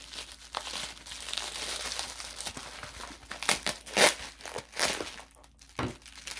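Plastic bubble wrap being crinkled and pulled open by hand around a small packaged crystal, in irregular crackly bursts, loudest about four seconds in.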